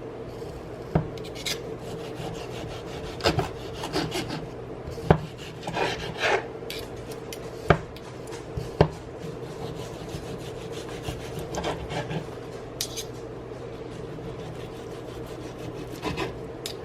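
Knife sawing through a pork roast on a cutting board: irregular rasping strokes with sharp knocks of the blade against the board.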